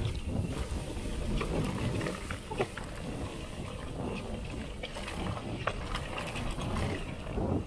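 Mountain bike rolling down a dirt singletrack: steady rumble of wind on the microphone and tyres on dirt, with frequent sharp clicks and rattles from the bike.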